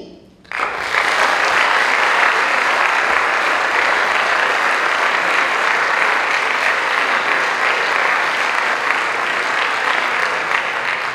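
Audience applauding, a dense, steady burst of clapping that starts suddenly about half a second in and keeps on.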